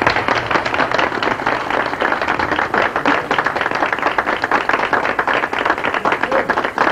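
Small audience applauding: dense, even hand-clapping that carries on steadily.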